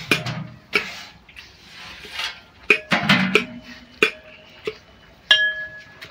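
Metal pots and utensils clanking and clinking: a series of sharp strikes, several of them leaving a short ringing tone. The loudest comes a little past five seconds in.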